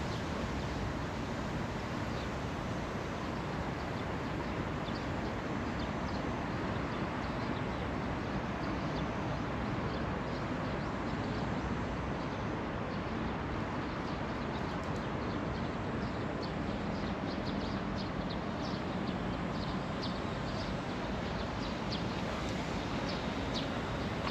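Steady outdoor ambience: a constant rush of background noise, with short, high bird chirps that come more often in the second half.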